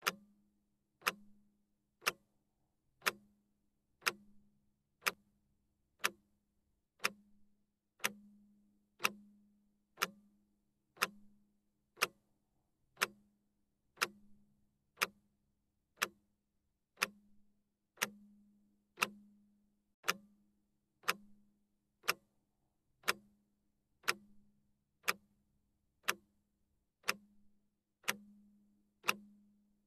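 Steady ticking, one sharp tick a second, each tick leaving a short low ring.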